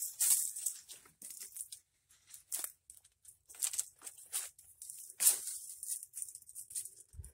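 Dry twigs snapping and dead leaves rustling as brush is cleared by hand, in short irregular crackles, with a brief low thud near the end.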